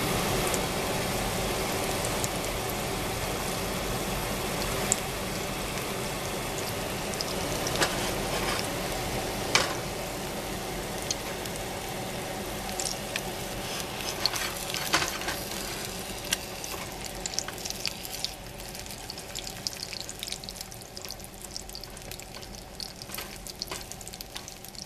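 Eggs frying in oil in a skillet on high heat: a steady sizzle with scattered pops and crackles, getting quieter over the last several seconds.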